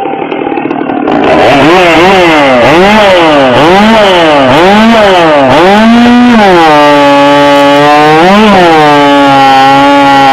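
Gas chainsaw in the 0–70 cc competition class. It comes in loud about a second in and is revved up and down repeatedly. Then it settles to a lower, steady pitch under load as it cuts through a log, with one brief rise in revs.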